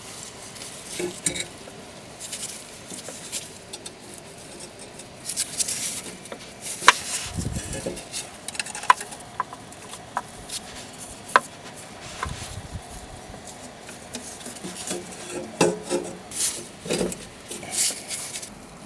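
Metal tools and parts being handled: irregular clinking and rattling, with several sharp metallic clicks.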